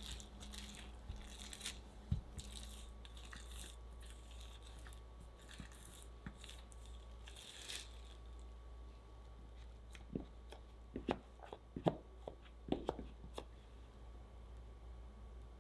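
Plastic cling wrap crinkling and rustling under a rolling pin as scone dough is rolled flat, stopping a little over halfway through. Later a plastic bench scraper knocks against the sides of the dough slab several times in quick, sharp taps as the edges are squared.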